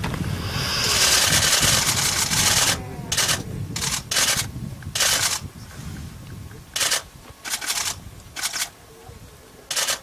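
Camera shutters firing in rapid bursts: one long burst of about two and a half seconds, then a string of short bursts of a fraction of a second each, over a steady low rumble.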